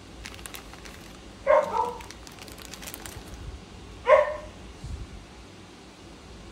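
A dog barking twice, about two and a half seconds apart, over the faint crinkle of a plastic bag being handled.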